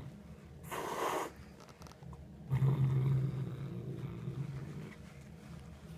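Domestic cat growling low and steadily over a caught mouse, the growl of a cat guarding its prey. The growl drops away briefly and comes back strongly about two and a half seconds in. A short hiss-like burst about a second in.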